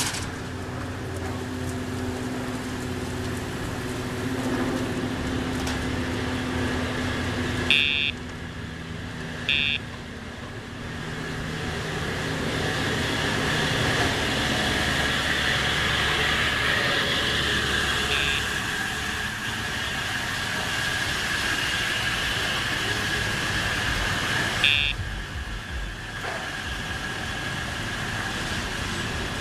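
Four short, high electronic beeps from a Dogtra remote training collar's sound box over steady parking-lot traffic noise.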